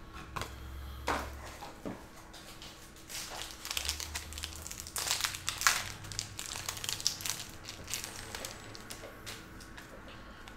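Crinkling and rustling of packaging being handled, with many light clicks, busiest in the middle.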